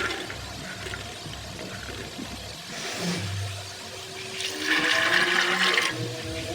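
Water rushing and splashing in short pours, the longest about 1.5 s near the end, typical of water poured into a vessel while washing or soaking the chickpeas. Faint music comes in near the end.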